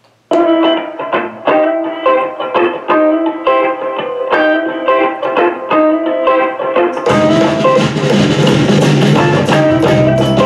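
Music with a plucked guitar line playing through an ECOXGEAR SoundExtreme SE26 Bluetooth sound bar; about seven seconds in, a fuller arrangement with bass and drums comes in.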